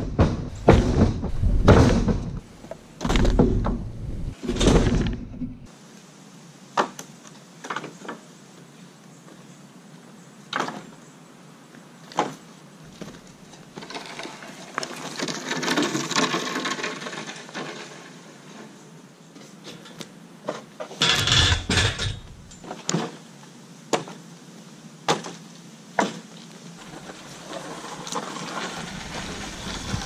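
Cut maple log rounds thudding onto a wooden trailer deck, several heavy knocks in quick succession over the first five seconds. After that come scattered knocks and a stretch of rustling, with another short cluster of loud knocks about two-thirds of the way in.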